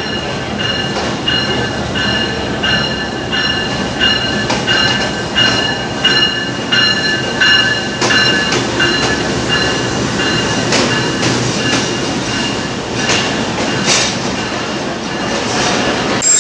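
Passenger train pulling into the platform behind a diesel locomotive, its wheels rumbling on the rails. A high squeal pulses at an even rhythm, a little more than once a second. In the second half the coaches roll past with sharp clicks of wheels over rail joints.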